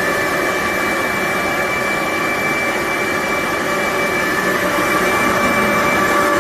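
BIDELI BD-M248 air-cooled industrial grinder running steadily, a loud even machine noise with a steady high whine; a lower tone joins near the end.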